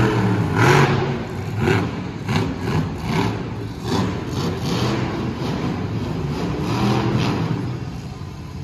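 Monster truck engine revving hard, its pitch rising and falling, with repeated sharp cracks over it.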